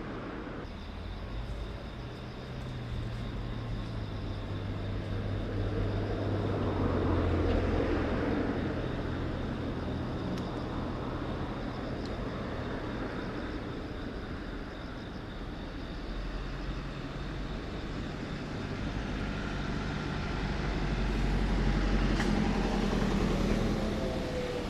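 Road traffic passing: a steady low rumble that swells twice, about a third of the way in and again near the end.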